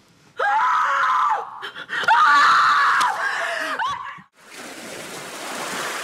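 A person screaming twice in long, high-pitched cries, the second one longer. Then, a little after four seconds in, a steady rushing hiss.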